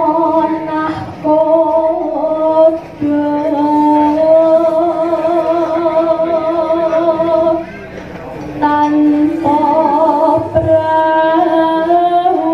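A sinden, a Javanese female singer, singing into a microphone, holding long notes with a wide vibrato. She breaks off briefly twice, the longer break about eight seconds in.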